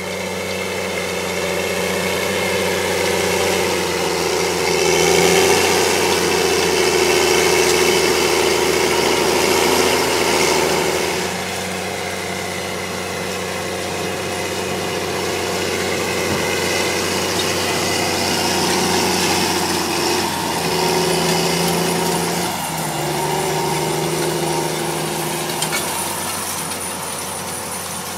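Challenger MT765 tracked tractor's diesel engine running steadily under load while pulling a Väderstad Rapid 600 seed drill; its note drops about eleven seconds in and shifts a few more times later on.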